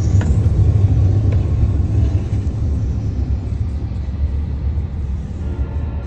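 Steady low rumble of a Union Pacific ethanol train, its freight cars rolling past.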